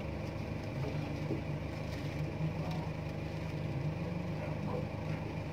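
Excavator diesel engine idling steadily with an even low hum.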